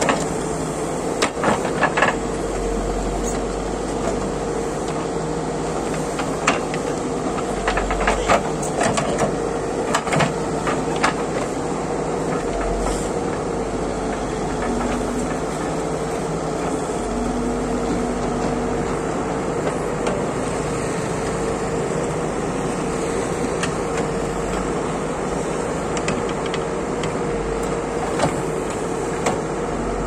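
Escorts backhoe loader's diesel engine running steadily with a constant hum while the rear backhoe bucket digs earth and stones, with a cluster of sharp knocks and clanks about a second in and again about eight to eleven seconds in.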